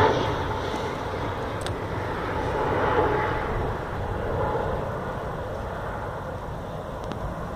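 Distant vehicle engine noise, a steady rush with a faint hum that swells briefly about three seconds in, then slowly fades away.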